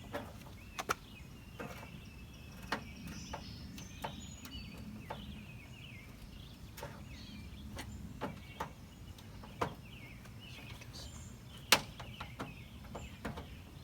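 Scattered clicks and knocks of plastic trim clips and hand tools as a Toyota Tundra's front bumper trim is pried loose. One sharp knock near the end is the loudest.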